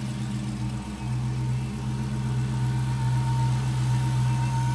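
Dodge Charger Hellcat's supercharged 6.2-litre HEMI V8 idling steadily, with a faint high whine that grows clearer about three seconds in. It runs smoothly with no knocks, a sign that the engine came through running out of oil undamaged.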